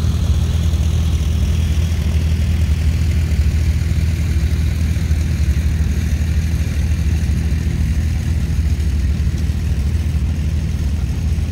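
Farm tractor engine running steadily at low revs, a constant low hum with no change in pitch or loudness.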